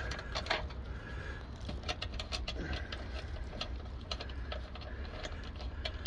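Brass caps being unscrewed by hand from a mini-split outdoor unit's service valves: small metallic clicks and scrapes of brass on brass, over a steady low hum.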